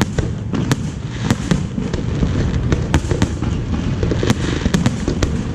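Fireworks display going off: a continuous low rumble of aerial shell bursts with many sharp, irregular cracks and pops on top.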